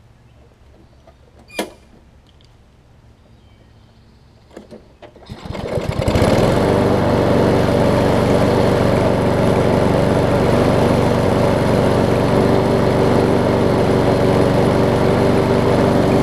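Kohler XT7 Courage single-cylinder push-mower engine pull-started, catching about five seconds in and then running at a steady, even speed, after a sharp click earlier on. It restarts once its sticking automatic choke has been freed with lubricant.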